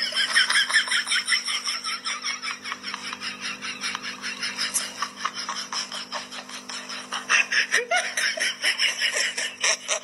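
Husky making rapid, high-pitched yelping cries, about four or five a second, in protest at having its paw handled on a grooming table. A steady low hum runs underneath.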